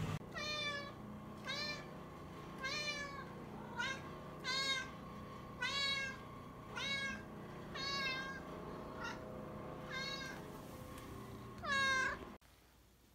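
Long-haired orange cat meowing over and over, high-pitched, about once a second, the last meow the loudest, then a sudden cut.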